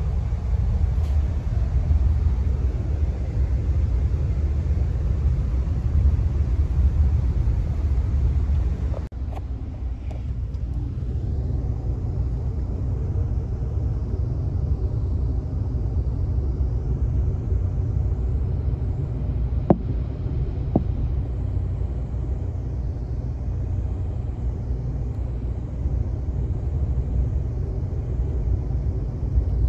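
Steady low rumble of a moving vehicle heard from inside it, with an abrupt change in the sound about nine seconds in and two short sharp clicks a second apart about twenty seconds in.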